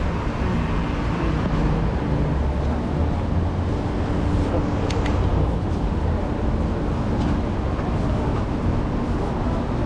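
Steady road traffic rumble with a low engine hum running under it, and a single sharp tick about halfway through.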